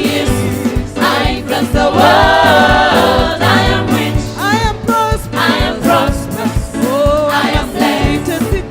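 Gospel worship music: voices singing over a band with a steady beat.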